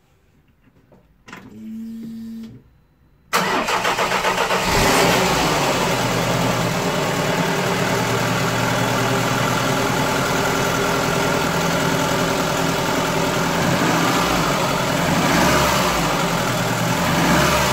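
Ford Fiesta 1.3 Endura OHV four-cylinder engine being started. After a brief steady hum, the starter cranks for about a second and a half with an even pulsing, then the engine catches and settles into a steady idle. It idles with its valve clearances freshly adjusted, running a lot quieter.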